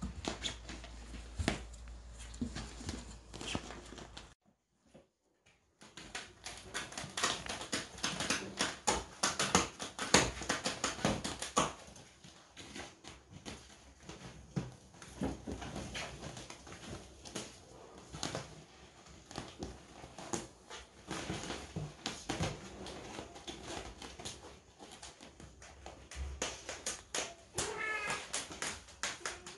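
Kittens scrambling in and around a nylon pop-up play tunnel, giving a dense run of rustling and claw scratching. A cat meows near the end.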